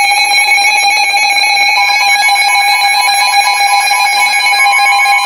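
Emergency Alert System attention signal: a loud, steady electronic alarm tone. A second, slightly higher tone joins it about two seconds in, giving the two-tone EAS alert.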